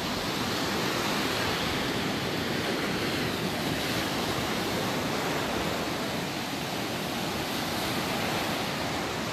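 Surf on a sandy beach: small waves breaking and washing up the shore, a steady rushing hiss without distinct crashes.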